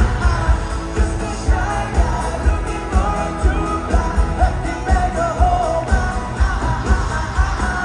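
Live pop-rock band playing, with singing over a steady drum beat.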